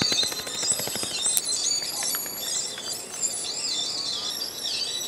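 Birds chirping and singing without a break. In the first second or so comes a quick run of sharp knocks, with a few more later, from a machete chopping into grass roots and soil.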